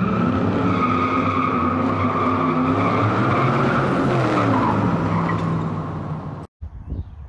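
Car tires squealing in a burnout with the engine revving, the revs rising and falling in the middle. It cuts off abruptly near the end, leaving quieter outdoor rumble.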